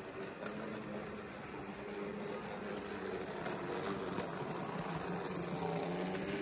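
Märklin H0 model railcar (class 515) running on the track: small electric motor humming, with the wheels rattling and clicking over the rail joints, growing louder as it comes close and passes.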